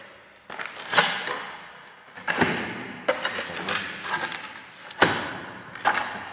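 Footsteps on loose, lifted ceramic floor tiles: six or so sharp, uneven knocks and clacks as the detached tiles shift and strike the floor bed underfoot, a sign that the tiles have come away from the floor.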